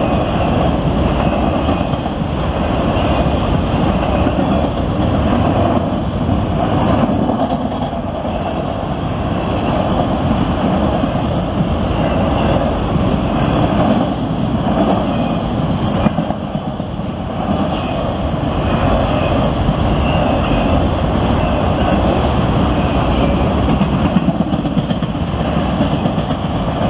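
CSX freight train's autorack cars rolling past at speed: a steady, loud rumble of steel wheels on the rails, with irregular clacks as wheels cross rail joints.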